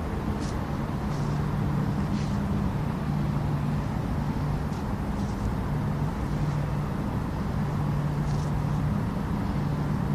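Steady low mechanical drone, with a hum that steps back and forth between two low pitches every second or two.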